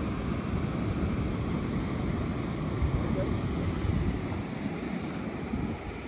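Wind buffeting the microphone over the wash of sea surf: a steady, low rumbling noise that eases slightly near the end.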